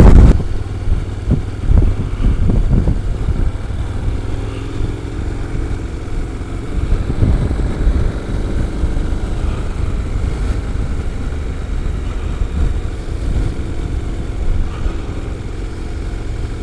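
KTM 1190 Adventure's V-twin engine running at road speed under a steady rush of wind, heard through a helmet-mounted microphone.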